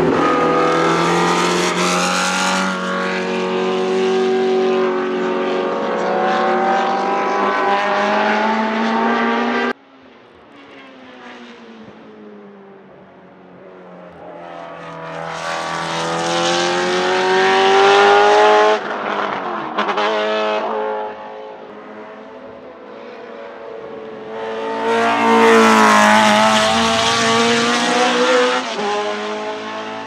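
Ford Cosworth DFL 90° V8 of a Tiga GC289 Group C2 racing car running hard on track, its pitch climbing as it accelerates. The sound cuts off suddenly about ten seconds in, then the engine swells loud twice as the car powers past and away, fading near the end.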